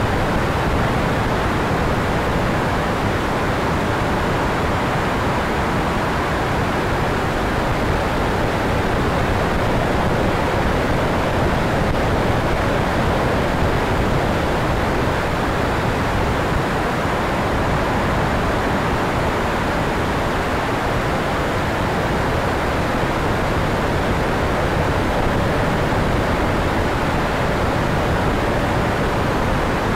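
Steady rush of air over an E-flite Viper 70 mm electric ducted fan jet in flight, heard from the camera on the plane, with the fan's faint steady whine under it.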